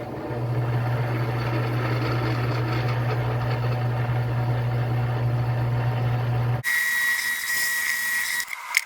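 Drill press running with a steady motor hum during pilot drilling in steel plate. About two-thirds of the way in the hum cuts off abruptly and a high, steady whine with hiss takes over, with a sharp click near the end.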